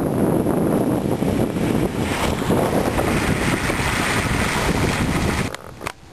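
Steady rushing noise with wind buffeting the microphone; it drops away sharply about five and a half seconds in.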